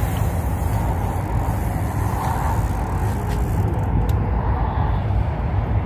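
Steady low rumble of wind buffeting the microphone, with a couple of faint clicks about three and four seconds in.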